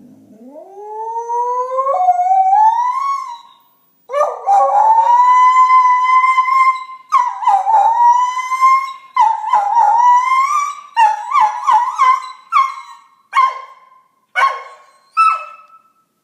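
A pet dog howling in response to an iPhone dog whistle app. The howl starts low and climbs steadily for about four seconds, then comes a long held howl, breaking into a run of shorter and shorter howls toward the end.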